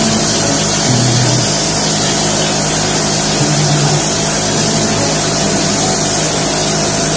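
Mortar spraying machine running steadily while mortar is sprayed from a hose-fed gun: a loud, even motor drone with a hiss and a thin high whine.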